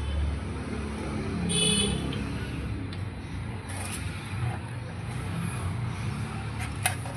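Steady road traffic in the background, with a short high beep like a vehicle horn about a second and a half in, and a couple of sharp clicks near the end.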